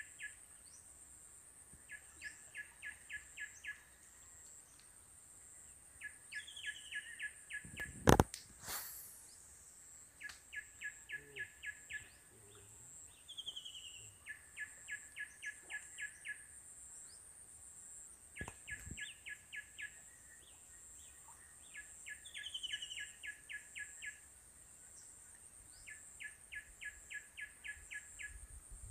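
Background bird song: a bird repeats a short burst of rapid, evenly spaced notes about every four seconds, with short falling whistles between the bursts, over a steady high-pitched whine. A single sharp knock about eight seconds in is the loudest sound.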